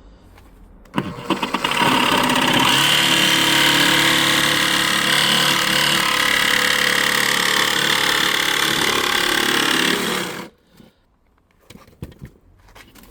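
Handheld electric power tool starting up and running steadily for about nine seconds, cutting into a door panel for a cat flap, then shutting off.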